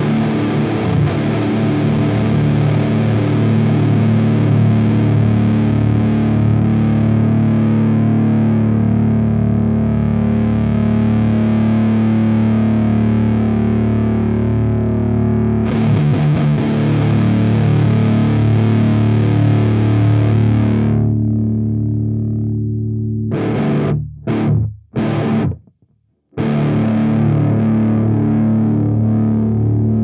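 Electric guitar played through a DIY copy of a Model T JFET amp-emulator pedal, giving a heavily distorted tone. Low chords ring out long at first and die away about two-thirds of the way through. Three short choked stabs and a brief silence follow, then a chord rings out again.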